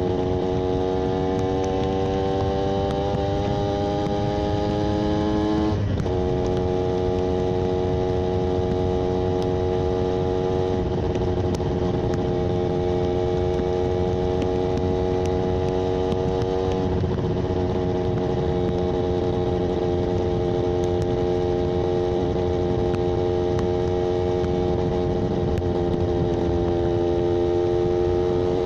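Yamaha 125ZR's single-cylinder two-stroke engine running steadily, its pitch climbing slowly for about six seconds, then dropping sharply. After that it holds almost level, with a small dip in pitch about seventeen seconds in.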